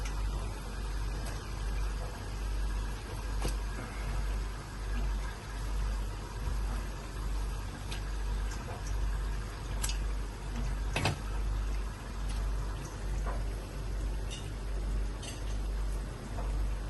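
Pot of water boiling on the stove: a steady bubbling over a low rumble that swells and fades about once a second, with a few light clicks.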